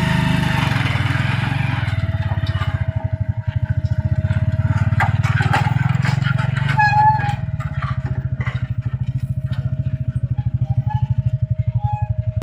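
Tuk-tuk's small engine running steadily at idle, an even low putter.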